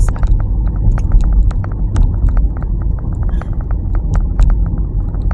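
Car driving, heard from inside the cabin: a steady low road and engine rumble, with many sharp, irregular ticks and clicks over it, several a second.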